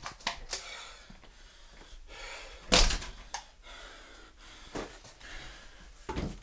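A series of knocks and thumps with rustling between them; the loudest, a heavy thump, comes between two and three seconds in, and another strong thump near the end.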